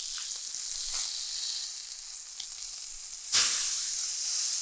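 Red snapper fillets sizzling in a hot cast iron skillet, with a few light taps of the spatula. About three seconds in, the sizzle jumps sharply louder as a fillet is turned over onto its other side.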